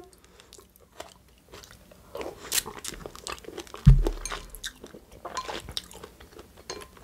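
Close-miked eating sounds: crisp chewing and crunching of salad, with small clicks of chopsticks against the bowls. A single low thump comes about four seconds in.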